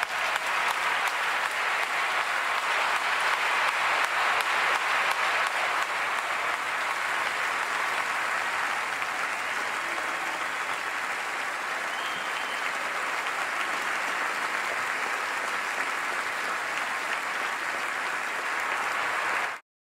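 Large audience applauding steadily, loudest in the first few seconds and easing a little, then cut off abruptly at the end.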